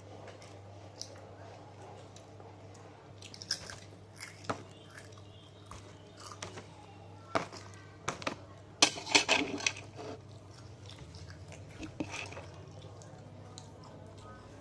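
Crunchy snacks, Chiki Balls and tempeh chips, being bitten and chewed. Scattered crunches come throughout, with a dense run of crunching about nine seconds in.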